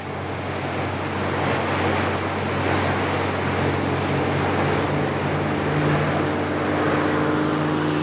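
Engines of a fishing seiner and its seine skiff running at speed, a steady low hum under a broad rush of water and spray from the bow wakes. A higher steady drone joins in during the second half.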